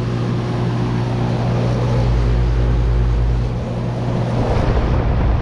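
2012 Bryant Legacy central air conditioner's outdoor unit running: a steady compressor hum under the rush of the condenser fan, which the owner finds weird-sounding. A deeper rumble swells for a second or so in the middle.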